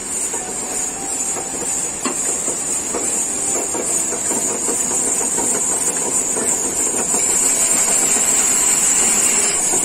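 Water-powered band-saw mill running, its belt-driven wheels and blade clattering over a steady hiss, with a sharp knock about two seconds in. The machinery gets louder about seven seconds in.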